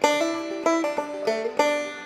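Background music: a plucked string instrument picking quick, bright notes, several a second, each ringing and fading.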